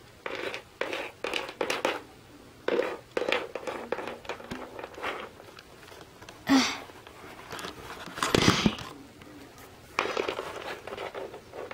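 Handling noise from small plastic toy figures and accessories being picked up and set down on a wooden floor: scattered light clicks and taps with some rustling, and a louder bump and rub about eight seconds in.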